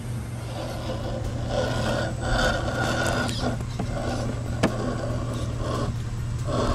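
Axial SCX10 II RC rock crawler with a brushed 550-size motor driving over rocks: electric motor and geared drivetrain whining in uneven spurts as the throttle is worked, tyres scrabbling on the rock. A single sharp knock a little past halfway, as the truck strikes the rock.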